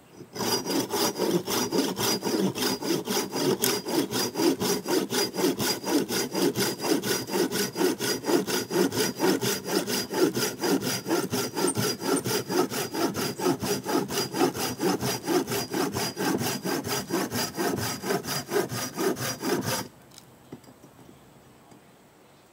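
Silky Gomboy folding pull saw cutting through a small branch by hand, with rapid, even back-and-forth strokes. The sawing stops abruptly about 20 seconds in.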